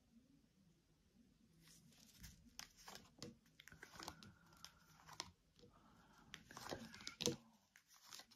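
Tarot cards being handled: faint crisp rustling of card stock and a string of small clicks, starting about two seconds in, with one sharper click near the end.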